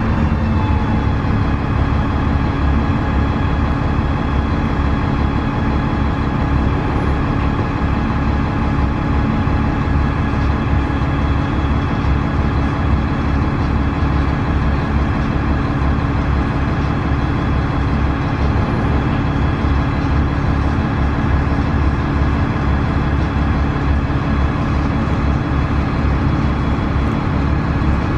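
Inside the cabin of a 2002 Gillig Advantage transit bus: its six-cylinder Cummins ISC diesel engine and drivetrain running steadily with a constant low drone.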